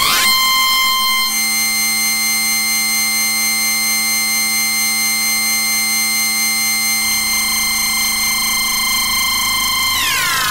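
Animoog software synthesizer holding one sustained note, rich in overtones, with a slight regular pulse in level. Near the end the upper overtones sweep downward in a falling glide.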